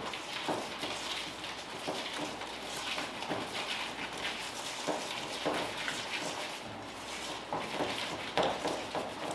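Hands squeezing and mixing butter, sugar and egg yolk together in a stainless-steel bowl: soft, irregular squishing strokes. The egg is being worked into the pâte sucrée dough by hand to keep air out of it.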